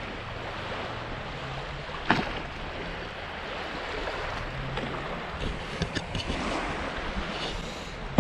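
Lake water lapping with wind noise on the microphone, and a single sharp knock about two seconds in.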